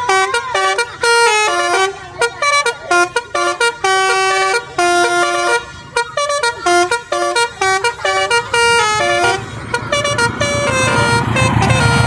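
Multi-tone 'telolet' horn playing a quick tune of short notes that step up and down in pitch. From about three quarters of the way in, a low rumble builds and gets louder.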